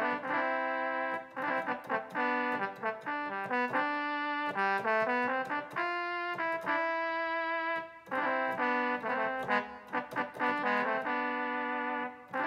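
Roland XP-10 synthesizer playing a patch in chords and melody, the notes changing several times a second, with one chord held briefly just past the middle and a short break about two-thirds of the way in.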